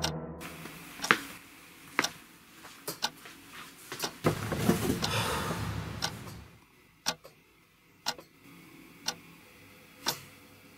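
Clock ticking, one tick about every second. The tail of a ringing tone dies away at the start, and a rushing swell of noise rises and falls in the middle.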